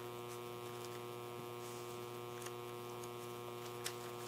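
Steady electrical mains hum on the microphone line, with a faint click about four seconds in.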